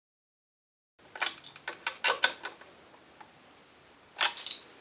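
Silence for about a second, then a run of short clicks and light knocks as a small metal carburetor is handled and slid onto its mounting studs against the plastic isolator block, with a few more clicks near the end.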